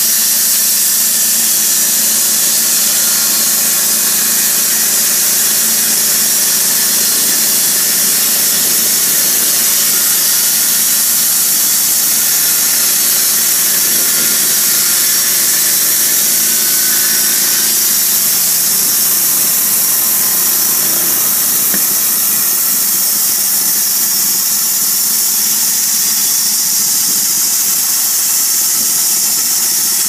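Honda petrol engine of a portable bandsaw mill running steadily while its band blade saws lengthwise through a wooden beam, a continuous engine drone under a hissing, squealing cutting noise.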